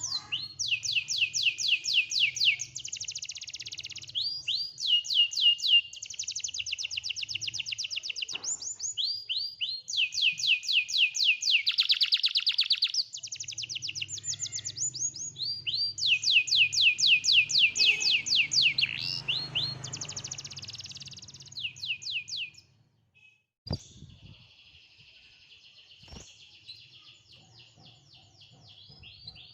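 Domestic canary singing a long song of fast trills and rapidly repeated notes. The song breaks off briefly about three-quarters of the way through, then carries on more faintly.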